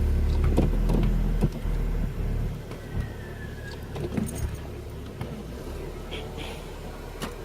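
Car heard from inside the cabin, its low engine rumble cutting off about two and a half seconds in as the engine is switched off after parking. A few light clicks and knocks follow.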